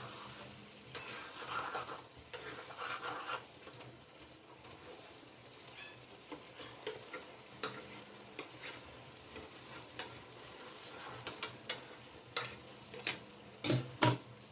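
Chicken pieces and potatoes in spice paste sizzling in a pan while a utensil stirs them, with frequent sharp clicks and knocks against the pan and a few short scrapes in the first few seconds. This is the kosha stage, the meat being fried down in its masala.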